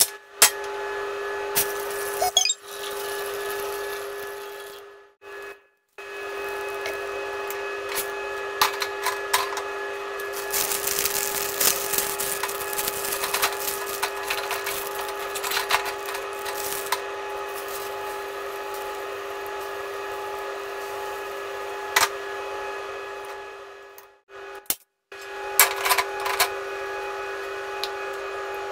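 A steady hum runs under scattered clinks and knocks of metal kitchenware, breaking off briefly a few times. Near the middle come a few seconds of rushing, splashing noise as boiling water is poured over a block of instant noodles in a metal strainer.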